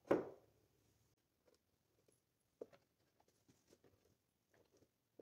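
A plywood fence channel knocked down onto a laminate worktop with a single thump, followed by faint scattered taps and clicks as metal bolts are pushed into holes along the top of the wood.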